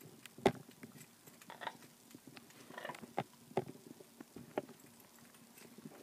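A parrot's beak tapping and clinking against a small metal cage-toy bell: several sharp separate taps, the loudest about half a second in, with brief scratchy scraping between them.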